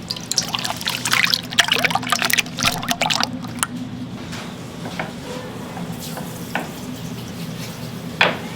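Liquid splashing and pouring for about three seconds, followed by a few separate clicks or knocks, with a steady low machine hum underneath.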